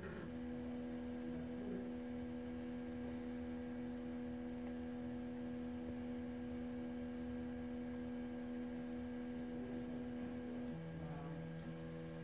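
PerkinElmer Lambda 35 UV-Vis spectrometer's scan drive running with a steady, pitched hum as it scans the last stretch toward 200 nm. The hum steps down to a lower pitch about eleven seconds in.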